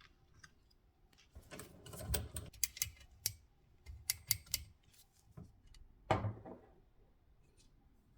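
Small hard parts being handled: a run of sharp clicks and rattles, then one louder knock as something is set down about six seconds in.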